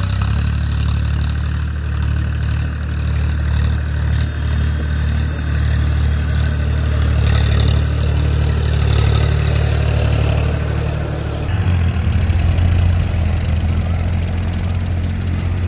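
Powertrac tractor's diesel engine running steadily as the tractor drives through deep mud. About eleven and a half seconds in, the sound cuts to another tractor engine running, lower and steadier.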